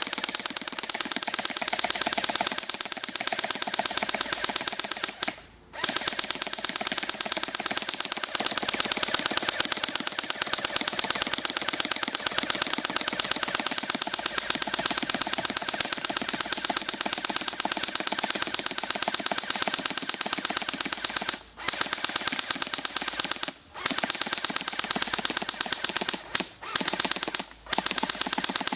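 Airsoft Thompson submachine gun firing a long stream of BBs on full auto, a rapid mechanical clatter. It stops briefly about five seconds in and several times in the last seven seconds.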